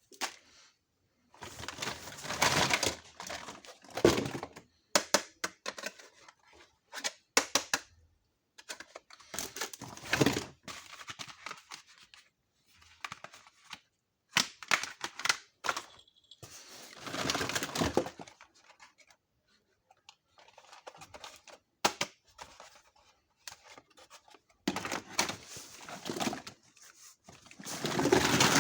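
Toy kitchen set being unboxed: repeated bursts of packaging tearing and crinkling, one to two seconds each, between many sharp clicks and taps of small plastic pieces being handled.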